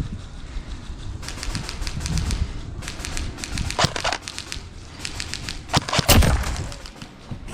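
Airsoft electric rifle firing three quick bursts of rapid, evenly spaced clacking shots, with a heavier thump near the end of the last burst.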